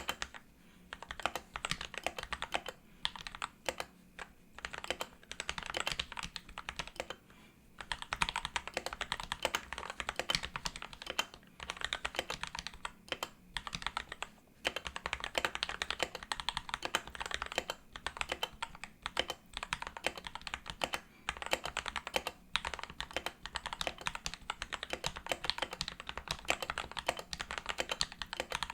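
Typing on a Royal Kludge RK100 mechanical keyboard fitted with lubed and filmed Gateron Black switches, PBT keycaps and a silicone mat in the case. The keys clatter in fast continuous runs broken by short pauses every few seconds.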